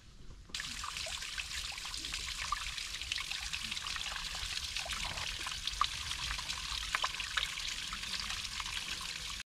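Water trickling steadily in a small stream, with many small splashes. It starts abruptly about half a second in and cuts off sharply at the end.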